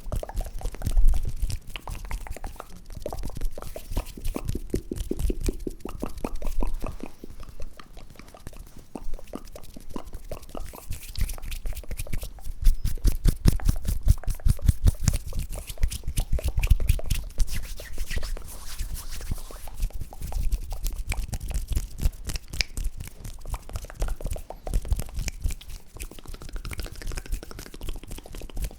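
Close-miked ASMR hand and mouth sounds: long runs of rapid wet clicks and pops, with heavy low thumps from the nearby microphone.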